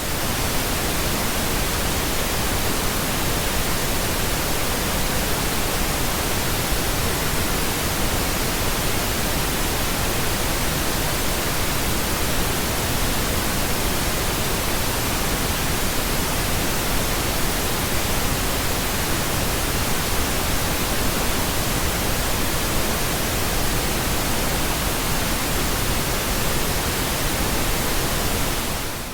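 Steady pink noise, a constant even hiss, played in the right channel only as a tinnitus-masking sound. It fades out at the very end.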